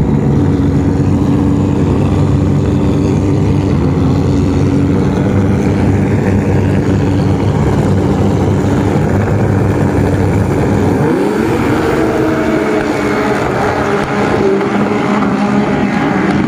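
A pack of racing jet skis running their engines together at the start line. About eleven seconds in, the engines rev up in a rising pitch as the field launches off the start and races away.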